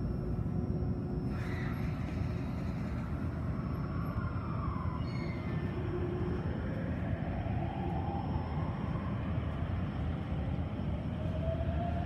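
Toei subway train pulling away and running in the tunnel: a steady rumble of wheels on rails under the traction motors' whine, which rises in pitch as the train gathers speed, with a second rising whine starting near the end.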